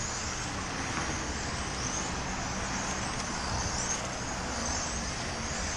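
Several 1/10-scale electric RC on-road race cars whining past, their high motor whine rising and falling in pitch again and again as they accelerate and brake. A steady low rumble runs underneath.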